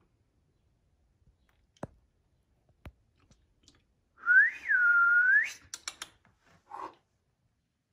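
A person whistles one short pure-toned call of about a second and a half, rising, dipping and rising again at the end, the kind used to get a puppy's attention. It is followed at once by a few quick sharp clicks.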